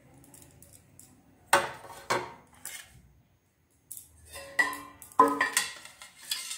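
Steel kitchen utensils clinking: a metal spatula set down and a steel plate and spoon handled. There are sharp clinks with a short ring about 1.5 and 2 seconds in, then a run of clatter in the last two seconds.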